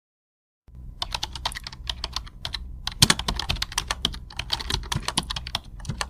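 Typing on a computer keyboard: quick, uneven runs of key clicks with short pauses, over a low steady hum.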